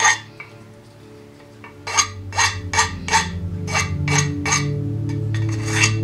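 Quick scraping strokes of a small hand tool rasping against the end of a black tube, coming about two to three a second after a pause in the first couple of seconds, over soft background music with sustained low tones.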